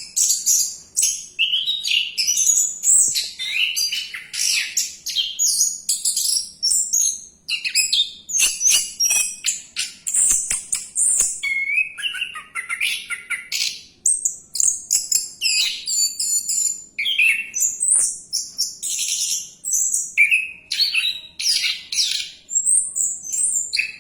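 Orange-headed thrush singing a continuous, fast, varied song of whistles and chirps, with hardly a pause. A few short clicks come in between about eight and eleven seconds in.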